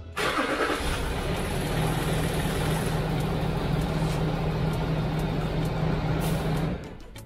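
Land Rover Discovery 3's 2.7-litre V6 turbodiesel starting, idling steadily for about six seconds and then switched off near the end. It is a short run to test that the engine-driven vacuum pump pulls vacuum for the brake booster.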